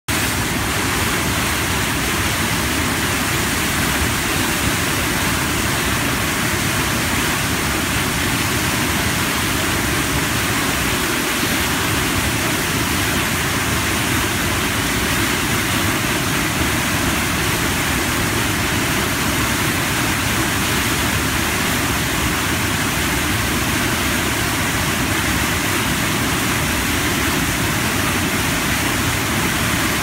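Large waterfall, white water plunging down a steep rock face: a loud, steady rush of falling water that never changes.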